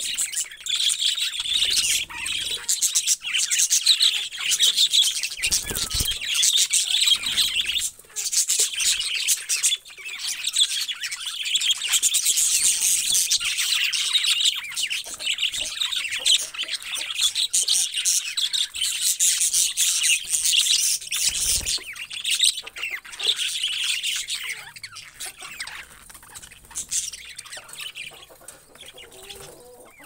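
A flock of budgerigars chattering and warbling, a dense, continuous high twittering that thins out over the last few seconds.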